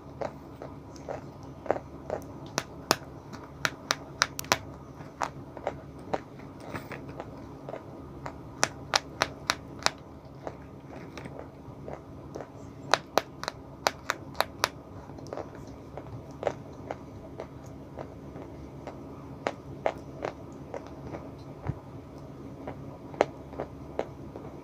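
Close-miked chewing of white blackboard chalk: sharp, irregular crunches and clicks, coming thickest in two bursts partway through.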